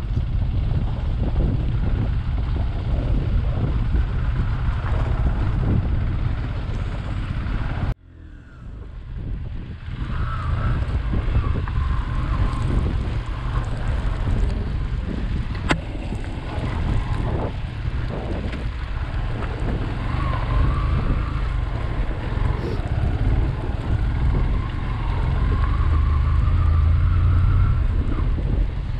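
Motorcycle riding on a rough gravel road, its engine running under a steady low rumble of wind on the microphone. The sound cuts out suddenly about eight seconds in and fades back up.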